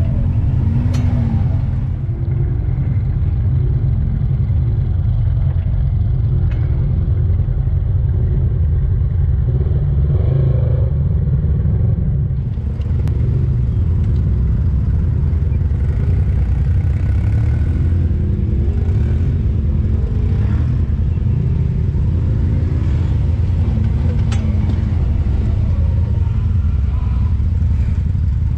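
Side-by-side UTV engine running under way, its revs rising and falling over a steady low rumble.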